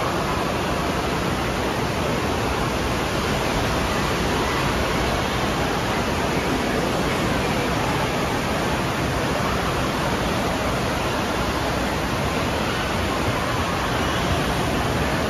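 Water rushing steadily out of a tube water slide and churning in its splash-down runout pool, a constant loud wash.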